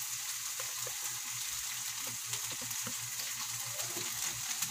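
Sardine sisig mixture of sardines, garlic, onion and red bell pepper frying in a wok: a steady sizzle with small scattered crackles as it is cooked down to dry out.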